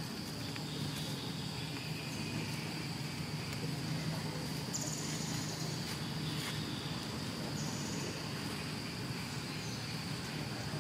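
Outdoor ambience: a steady high-pitched insect drone over a low even rumble, with two brief higher buzzes about five and eight seconds in.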